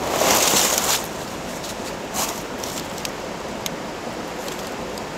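Steady rush of a small stream flowing over rocks, with a loud rustle of nylon tent fabric being handled in the first second and a few light clicks about three seconds in.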